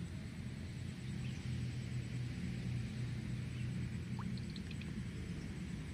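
A low, steady hum and rumble of background noise, with a few faint clicks about four seconds in.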